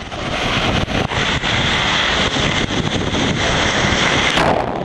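Wind buffeting the microphone and water rushing past the hull of an ocean racing yacht sailing fast, a dense steady roar of spray and air. The noise changes abruptly near the end.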